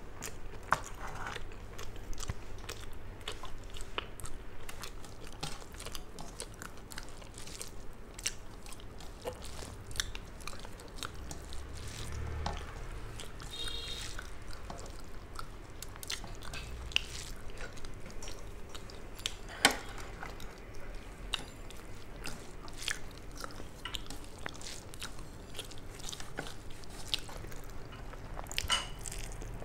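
Close-miked chewing and wet mouth sounds of a person eating rice and steamed hilsa fish by hand, with scattered short sharp clicks throughout.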